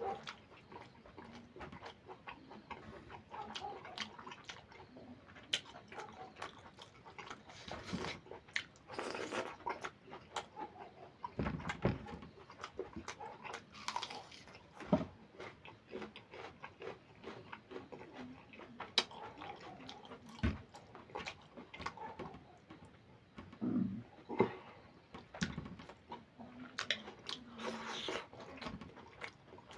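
Close-miked eating of goat liver curry with rice: chewing and wet mouth smacking, with many short clicks and an occasional crunch.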